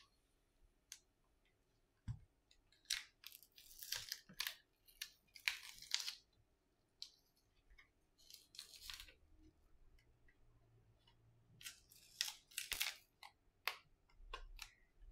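Samsung Galaxy A70's plastic back cover being pried and peeled off by hand, the adhesive crackling and tearing in short bursts, with a few sharp clicks.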